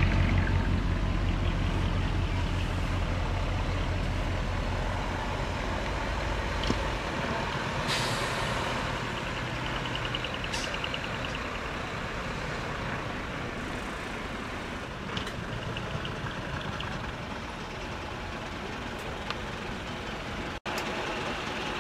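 Heavy diesel trucks running as they drive slowly past, with a deep engine rumble that fades about seven seconds in. About eight seconds in comes a short hiss of released air from a truck's air brakes.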